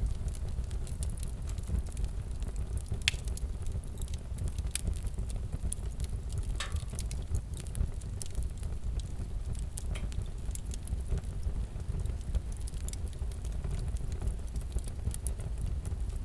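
Wood fire crackling in a fireplace: irregular pops and snaps over a low, steady rumble.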